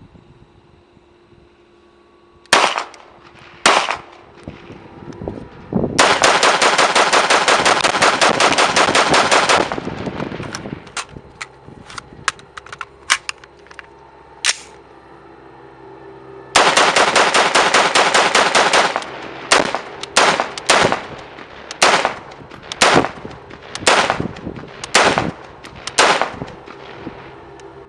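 5.56 AR-15-type rifle with a VG6 Gamma 556 muzzle brake firing: two single shots, then a long string of rapid fire lasting nearly four seconds, scattered shots, a second rapid string of about two seconds, and then single shots about a second apart.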